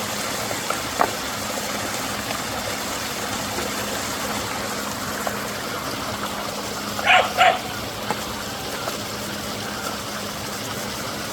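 Steady rushing of a rain-swollen waterfall, with a dog barking twice, sharply, about seven seconds in.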